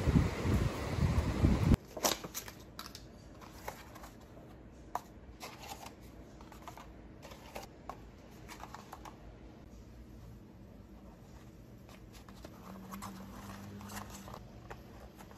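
Wind buffeting the microphone, cutting off abruptly about two seconds in. Then soft clicks and paper rustles as paper baking cups are pulled apart and set on a baking tray, and ham slices are pressed into them.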